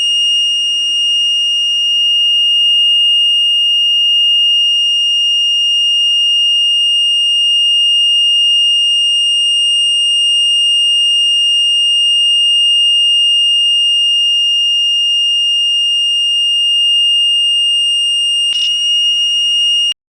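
Buzzer of a thermistor-based fire-alarm circuit sounding one steady, loud, high-pitched tone: the circuit's alarm output, switched on through its relay. It breaks briefly near the end, then cuts off suddenly.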